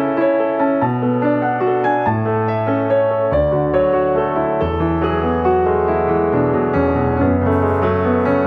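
Background music played on piano, with a melody over slowly changing bass notes.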